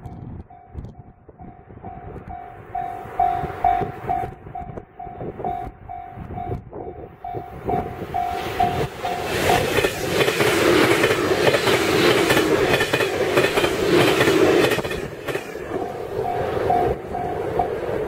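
Level-crossing alarm bell ringing at about two strokes a second. About ten seconds in, a JR Kyushu electric commuter train passes close by for roughly five seconds: a loud rush with wheels clacking over the rail joints that drowns the bell. The bell is heard again briefly and stops shortly before the end.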